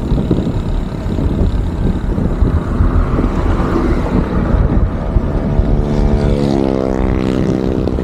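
Wind buffeting the microphone of a handlebar camera on a moving bicycle, with steady road rumble. In the second half a motor vehicle's engine hum comes in and drops in pitch as it passes.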